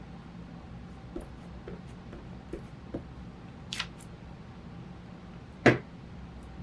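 Handling of paper collage pieces and a glue stick on a cutting mat: a few small soft taps, a brief paper rustle about halfway through, and a sharp knock near the end, the loudest sound, over a steady low room hum.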